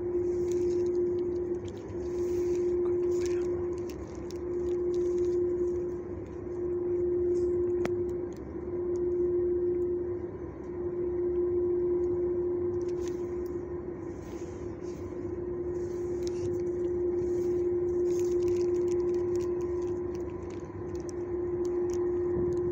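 A steady mechanical hum on one held pitch, swelling and fading in loudness about every two seconds.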